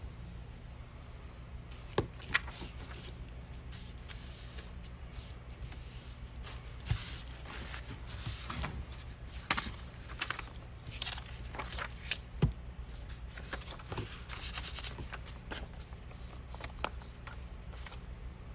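Sheets of craft paper being handled, shuffled and slid about, rustling in short bursts, with a few sharp taps and clicks against the table over a steady low hum.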